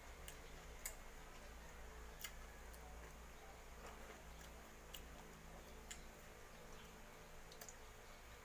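Near silence: room tone with a low hum and about six faint, scattered clicks.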